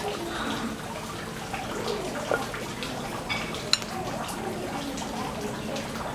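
Steady sound of running, trickling water with faint voices in the background, and a single sharp clink about three and a half seconds in.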